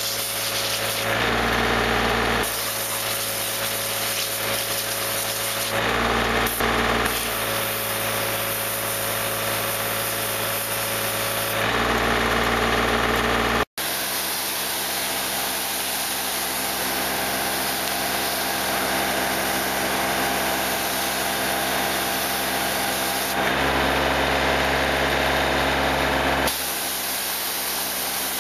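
High-pressure water jet hissing from a PTO-driven Comet 4,000 psi pressure washer pump on a John Deere 2520 compact tractor, with the tractor's engine running steadily underneath. The jet first cuts into cardboard, then blows leaves across gravel. The sound changes character in several short stretches and drops out for an instant about 14 seconds in.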